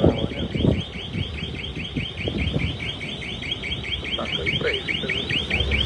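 Electronic alarm sounding a rapid, evenly repeating warble of short chirps, several a second, over low background noise.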